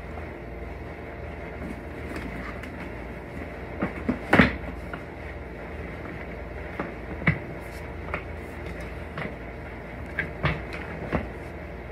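Shop vacuum running with a steady drone, with sharp clacks and knocks of hard broken chunks rattling against it, the loudest about four and a half seconds in and a scatter of smaller ones later.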